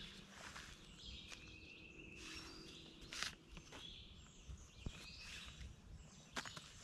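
Quiet, scattered rustles and crackles of hand-pulling weeds from a strawberry bed, with a louder rustle about three seconds in. Birds chirp in the background.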